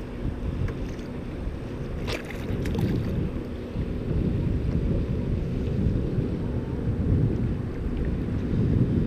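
Wind buffeting the microphone, a steady low rumble, with a few brief splashes about two to three seconds in from a hooked striped bass thrashing at the surface beside the kayak.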